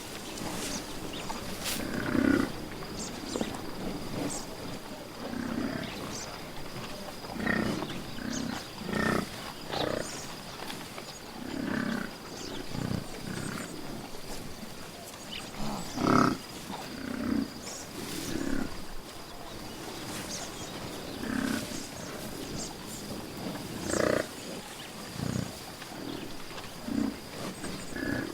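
A large wild animal making short, low growls or grunts, one every second or two.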